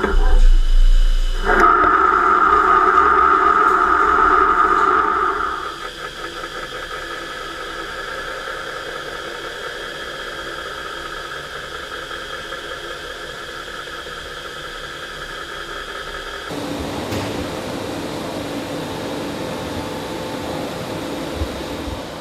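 Starrag STC 800 machining centre turning a spinning aluminium impeller blank. The cut is loudest in the first few seconds, with a steady ringing tone, then drops about six seconds in to a quieter, steady machine noise.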